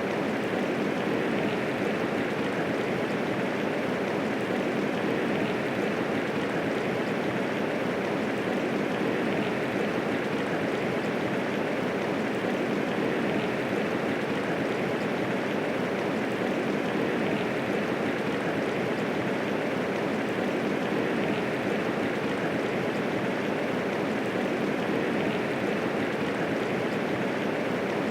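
Steady medium rainfall, an even hiss of falling rain with no thunder.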